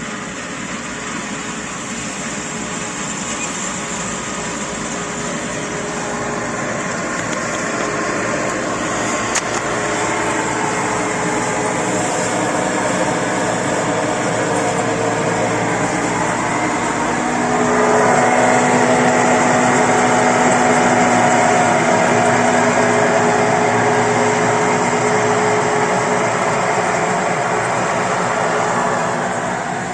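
Combine harvester working in the field, its engine and machinery growing gradually louder as it comes closer. It is loudest through the second half with several steady droning tones, then drops off shortly before the end.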